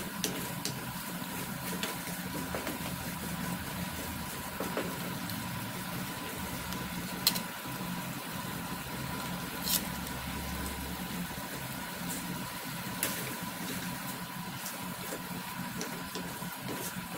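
A wooden spatula stirs chicken feet simmering in sauce in an aluminium wok, with a few short knocks against the pan, the two sharpest about seven and ten seconds in. Under it runs a steady mechanical hum.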